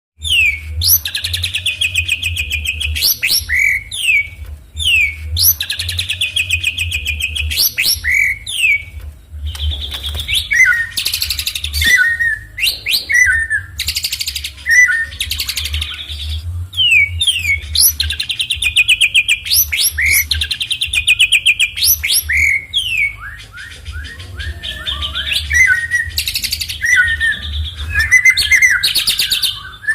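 A songbird singing loud, repeated phrases of fast buzzy trills broken by sharp, rising whistled 'shot' notes (tembakan), the hard calls used to rile rival birds. A steady low hum runs underneath.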